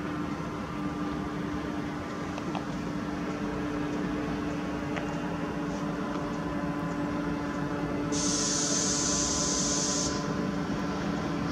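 Diesel railcar SA134 (PESA Link DMU) approaching at low speed, with a steady drone and a constant low hum. A hiss starts about eight seconds in and cuts off suddenly some two seconds later.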